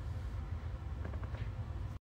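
Low steady hum with faint hiss: microphone room tone, cut off suddenly at the end.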